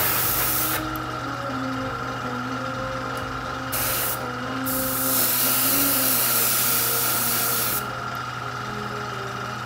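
Airbrush spraying paint in three bursts of hiss: one cutting off within the first second, a short one near the middle, and a longer one of about three seconds. A steady hum runs underneath.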